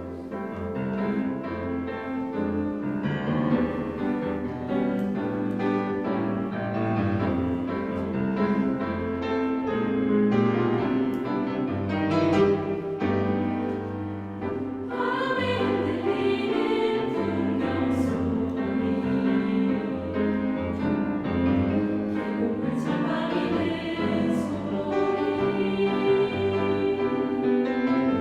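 Choir singing a bossa nova-style choral piece, starting abruptly out of silence and continuing with sustained, many-voiced harmonies.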